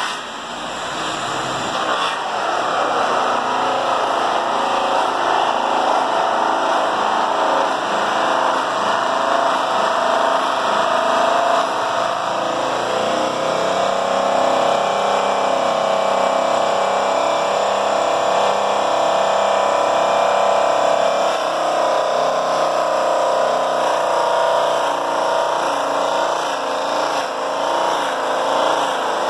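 Handheld power polisher running steadily with its pad pressed against a truck drive wheel's polished aluminium rim, during the first-cut stage of polishing. The whine wavers slightly as the pad is worked over the metal, with a brief dip in level right at the start.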